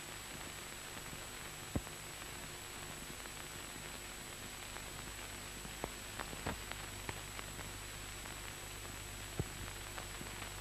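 Steady hiss and low hum of an old film soundtrack, with a thin high whine over it. It is broken by a few sharp clicks and pops: one near two seconds in, a small cluster between about six and eight seconds, and one more near nine and a half seconds.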